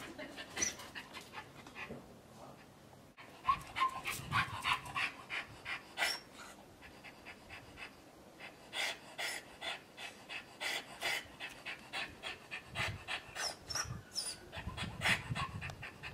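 A dog panting with its mouth open: quick, even breaths in and out that set in a few seconds in and keep repeating.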